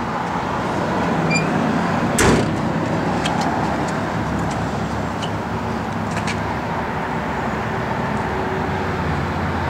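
A car's trunk lid, on a 1964 Buick Riviera, shut with a single thump a little over two seconds in, over steady outdoor traffic noise.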